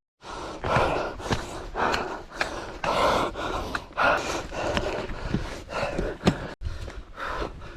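A hiker breathing hard and fast while climbing uphill, a heavy breath about every half second, with the light taps of footsteps between them.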